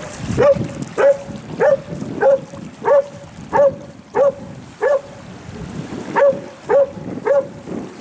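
Dog barking in a long run of short, evenly spaced barks, about one and a half a second, with a short pause about two-thirds of the way through.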